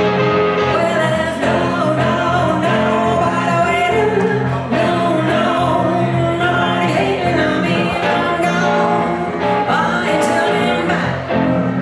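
Live band music: a man singing over an archtop electric guitar and an electric keyboard.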